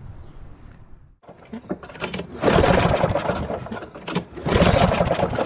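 A Lawn-Boy mower's small OHV engine being cranked with the recoil pull-starter twice, the first pull about two seconds in, while a spark tester is on the plug lead; it turns over without catching.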